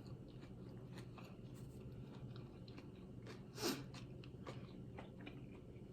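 Close-up chewing of a BLT sandwich with bacon: faint, soft mouth clicks, with one louder bite sound about three and a half seconds in.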